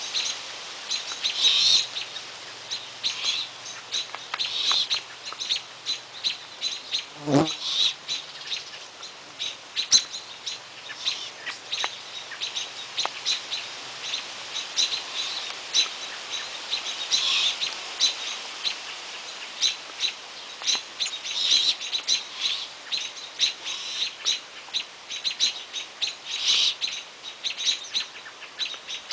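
Small birds chirping over and over, short high-pitched calls in quick clusters every second or so, with one brief rising sound about seven seconds in.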